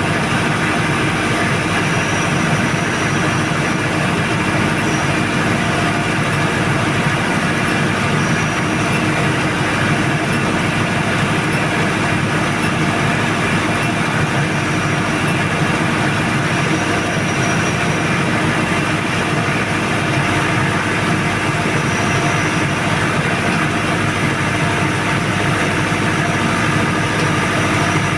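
Tsuzumi TDG 62.5 kVA super-silent diesel generator set running steadily, its four-cylinder turbo diesel engine giving a constant, even drone.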